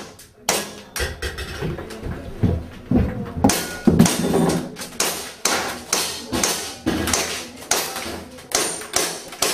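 Airsoft pistol firing a long string of sharp shots, about two a second.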